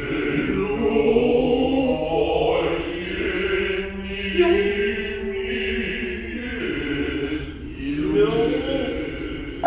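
Noh chanting (utai): voices in a slow, low, sustained chant, with a single sharp hand-drum stroke about four seconds in.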